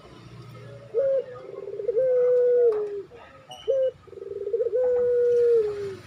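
Male Barbary dove (puter) cooing twice. Each call is a short note, then a rolling trill that runs into a long drawn-out coo, which drops a little in pitch at the end. It is the bird's breeding-condition call to a female.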